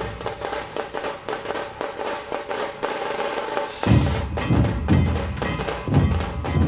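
Background music with a busy percussion beat; the bass drops out at first and the kick drum comes back in about four seconds in.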